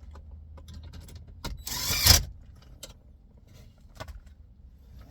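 Hands working on car dashboard trim and wiring, with scattered clicks and light rattles. About two seconds in there is one brief, loud scraping rustle.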